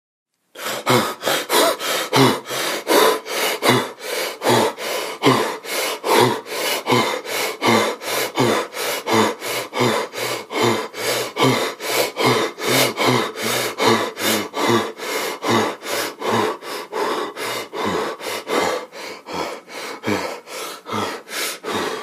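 A person panting fast and hard, short rhythmic breaths in and out at about three a second with a slight voiced edge, starting about half a second in.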